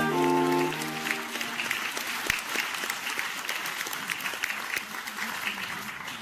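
Saxophone quartet's closing chord, held and stopping about a second in, followed by audience applause that slowly fades and stops abruptly near the end.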